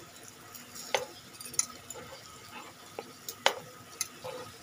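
Metal spatula clicking and scraping against a nonstick frying pan as coated potato slices are turned one by one in shallow oil, over a faint sizzle. About six sharp clicks, the loudest about three and a half seconds in.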